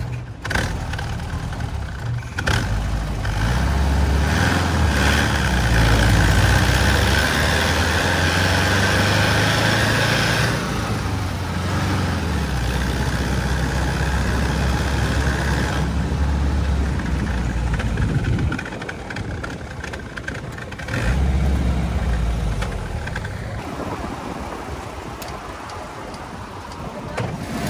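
The 1500 cc air-cooled flat-four of a VW Type 2 single-cab pickup, running as the heavy truck drives. It pulls hardest in the first third, drops off briefly about two-thirds in, then picks up again.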